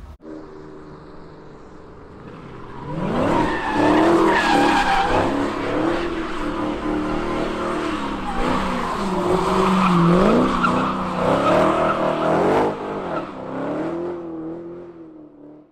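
Dodge Challenger doing donuts, its tyres squealing in wavering, bending tones over the engine's revving, loud from about three seconds in.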